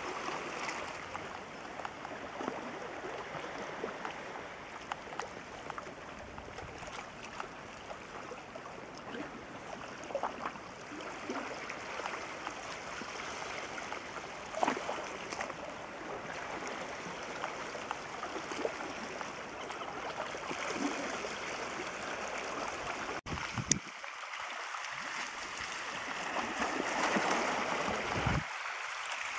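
Seawater washing and trickling among shoreline rocks around a tide pool: a steady rushing noise with small splashes and ticks, and a couple of louder knocks.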